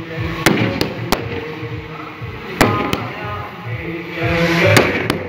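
Firecrackers going off in sharp bangs, about seven cracks in three quick clusters, over music with a steady beat playing the whole time.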